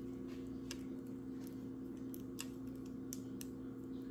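A few small, sharp plastic clicks and taps from handling an insulin pump infusion set and its inserter, spread irregularly over a steady low hum.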